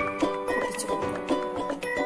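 Background music of short melodic notes at a steady pace.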